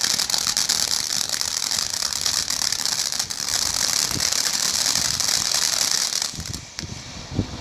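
Ground firework crackling in a dense, rapid stream of pops over a steady hiss, stopping suddenly about six seconds in.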